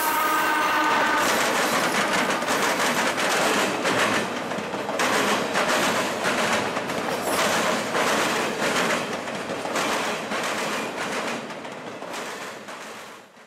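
Freight train passing close: the locomotive's horn chord ends about a second in, then the rolling autorack cars rumble by with steady wheel noise and irregular clacking of wheels over the track, slowly getting quieter toward the end.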